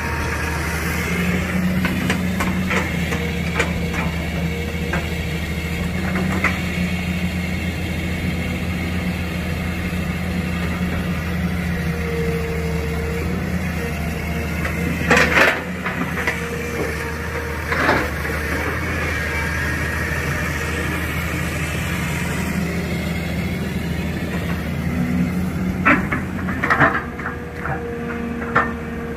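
Tracked excavator's diesel engine running steadily at a low drone, with a few sharp knocks and clanks from the working machine about fifteen seconds in, again near eighteen seconds, and several near the end.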